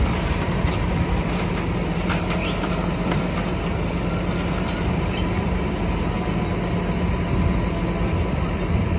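Automated side-loader garbage truck's engine running steadily with a constant low hum.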